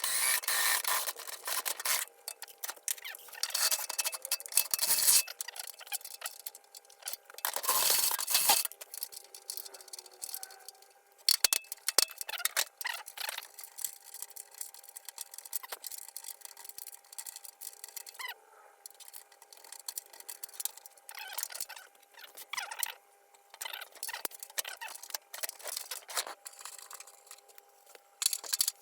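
Hand work on metal parts: scattered clinks, taps and short scrapes as tools, bolts and an aluminium strip are handled, with pauses between.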